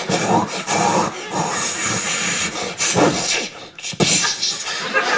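A man making sound effects with his mouth: hissing, whooshing, beatbox-like noises that come and go, with a sudden sharp noise about four seconds in.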